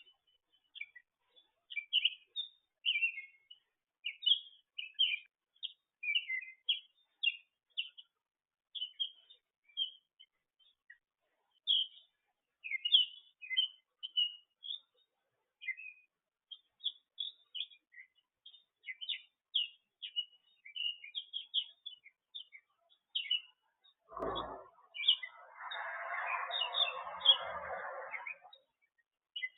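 Small songbirds chirping and twittering in a dense run of short, high chirps. About 24 seconds in comes a low thump, then a few seconds of noisy rustling hiss under the chirps.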